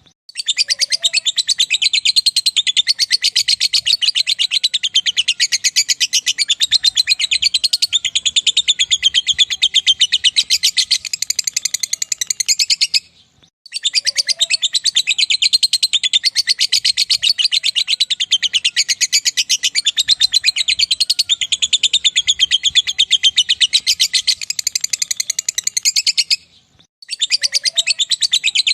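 Lovebird singing its long 'ngekek' chatter: a rapid, unbroken string of high, shrill notes held for about thirteen seconds at a time, with a brief pause about halfway through and another near the end.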